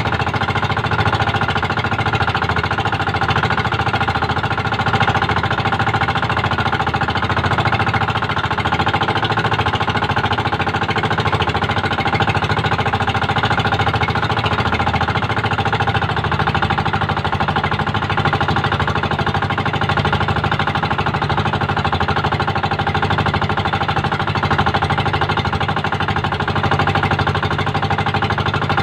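Engine of a motorized outrigger boat running steadily under way at trolling speed.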